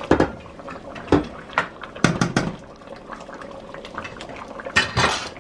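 Thick amaranth soup bubbling in a pot as it is stirred, with several sharp knocks of a utensil against the pot.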